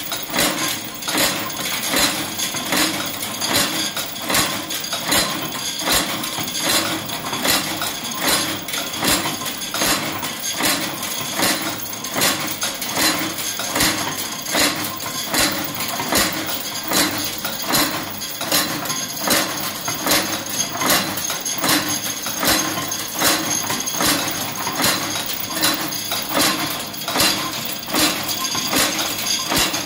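A belt-driven flywheel screw-and-bolt forming machine running, its ram striking the wire blanks with a steady metallic clank a little under twice a second over the hum of the drive.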